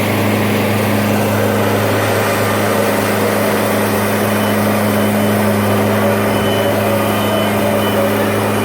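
Engine of a Wood-Mizer portable bandsaw sawmill running steadily at a constant speed.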